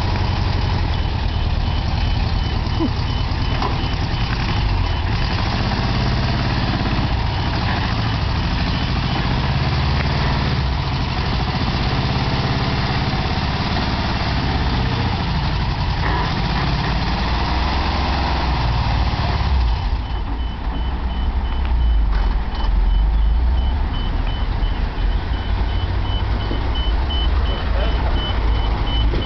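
Tow truck engine running steadily, with a high warning beeper sounding in rapid repeats that stops about nine seconds in and starts again about twenty seconds in.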